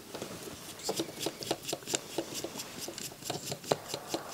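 Hands working on a NAD C502 CD player's drive mechanism: irregular small clicks, taps and rubbing as parts are handled during disassembly.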